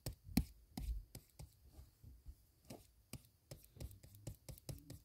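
Light, irregular tapping on a tablet touchscreen while drawing, a dozen or so sharp taps with a soft thump under each.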